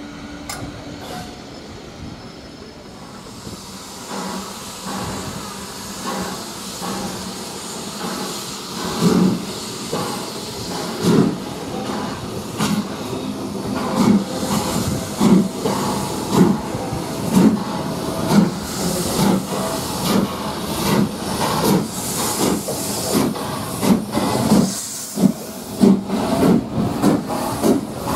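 Steam locomotive working away under load: a steady steam hiss, then exhaust beats about once a second that gradually quicken as it picks up speed.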